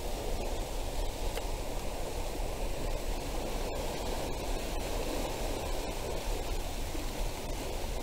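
Steady rush of water churning out of a hydroelectric power plant's spillway.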